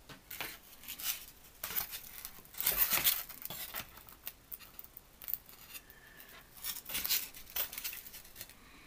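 Foam-board model aeroplane being handled and turned in the hands: irregular scratchy rustling and light clicks and knocks, loudest about three seconds in.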